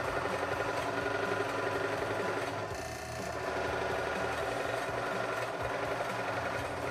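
Tomix FB314 benchtop drill press's 250-watt motor running at low speed while a large Forstner bit chatters against hardwood, briefly easing off about three seconds in. The bit is struggling and barely cutting: the small motor lacks the power for a 60 mm Forstner bit.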